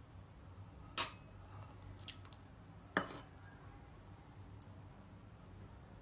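A serving spoon clinking against a glass baking dish as chocolate sauce is spooned over sliced cake: two sharp clinks about two seconds apart, with a lighter tick between.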